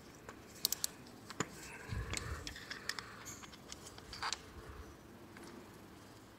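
Scattered light metal clicks and scrapes of a hand-held socket driver with an 8 mm socket being fitted onto and turning a motorcycle's oil filter screen cover bolts, with a brief low handling bump about two seconds in.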